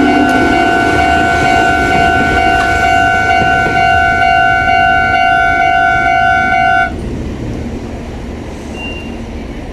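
Japanese railway level-crossing alarm ringing with a steady electronic tone over the rumble of a train, then cutting off suddenly about seven seconds in as the crossing clears; the train's running noise carries on after.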